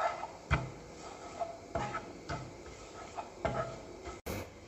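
Spatula stirring and scraping grated coconut around a frying pan, with several soft knocks of the spatula against the pan at irregular intervals.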